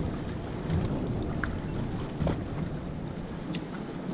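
Wind rumbling on the microphone and water rushing and slapping against the hull of a boat running across choppy water, with a couple of heavier low thumps about one and two seconds in.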